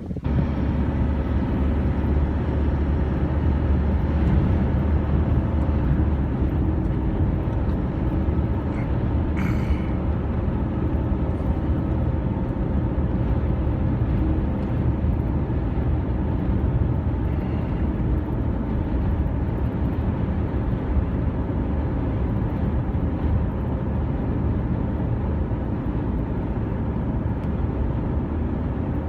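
Steady low rumble of a vehicle in motion, with a faint steady hum running through it.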